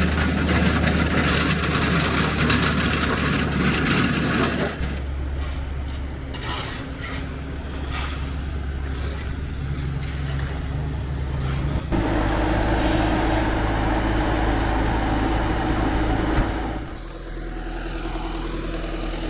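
Engines running steadily, heard in several separate stretches that change abruptly about 5, 12 and 17 seconds in.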